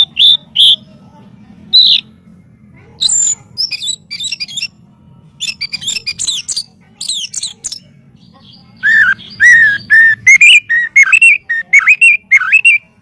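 White-rumped shama (murai batu) singing: a few short high notes at the start, then a rapid run of varied high twittering phrases, and from about nine seconds in a loud string of clear, lower whistled notes.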